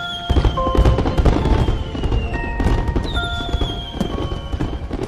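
Fireworks bursting and crackling with low booms, over background music with held notes. Two long falling whistling tones come in, one near the start and one past the middle.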